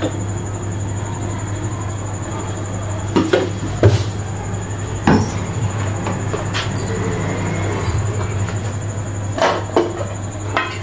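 Steady low kitchen hum and rushing noise, with a few light knocks and clatters as a plastic jar and paratha dough on a board are handled, about three to five seconds in and again near the end.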